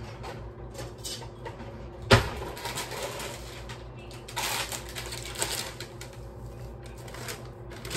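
A cookie box and its plastic sleeve being handled and opened: scattered crinkles and clicks, with one sharp knock about two seconds in, over a steady low hum.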